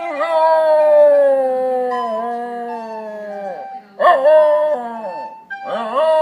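Dog howling: one long howl that slides slowly down in pitch for about three and a half seconds, then a short howl about four seconds in, and another beginning near the end.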